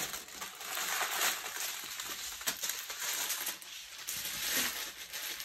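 Small plastic packets of diamond-painting drills crinkling and rustling as a pile of them is scooped up and moved, with many light clicks from the drills shifting inside the bags.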